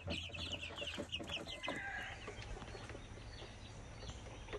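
Young white leghorn chickens clucking and calling: a flurry of short high calls in the first couple of seconds that thins out to fainter, scattered calls.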